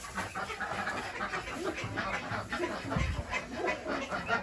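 Farmyard animal sounds: several animals calling and moving over one another, without one clear caller.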